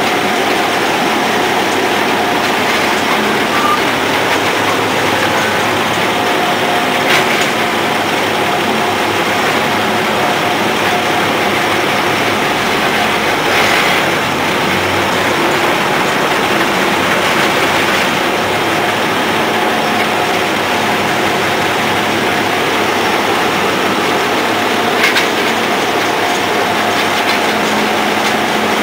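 A 1930 Moore Speedcrane running, its Cummins diesel engine and open gear train and drums making a loud, steady mechanical noise, with a few brief knocks from the machinery.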